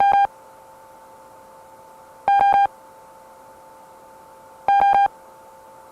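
Synthesized alert tone opening an emergency broadcast message. Three loud buzzy electronic beeps come about two and a half seconds apart, each under half a second long, over a faint steady two-note tone.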